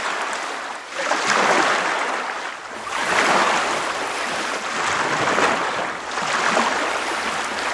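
Water rushing and splashing, swelling and easing every second or two.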